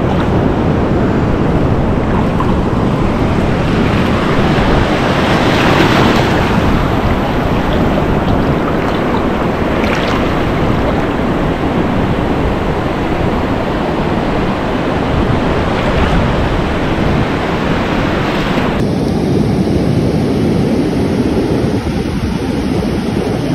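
Small waves washing in and out over the shallows at the water's edge, with wind rumbling on the microphone. The wash swells louder three times.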